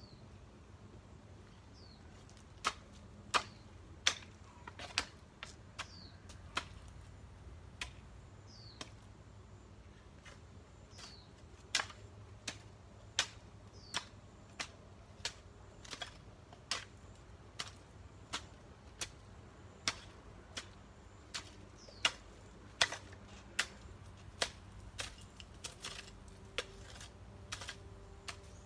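A long irregular series of sharp clicks or snaps from hand work, about one a second, some louder than others. Under them are a few faint, short high chirps that fall in pitch.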